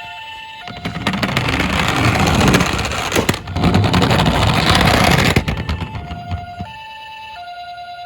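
Toy ambulance's electronic siren playing a two-tone hi-lo wail, switching pitch about every two-thirds of a second. From about a second in until past the middle, a louder rattling rumble with many clicks, the toy car rolling down its plastic slope, covers the siren for about four seconds.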